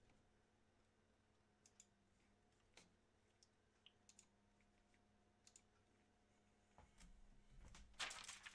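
Near silence: room tone with a low steady hum and faint scattered clicks, and a short louder rustle near the end.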